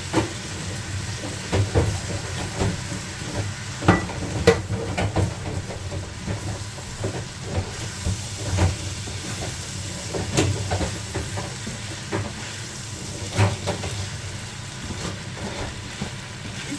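Rice and beef for pilau frying in a pot with a steady sizzle, while a spoon stirs and knocks against the pot at irregular moments.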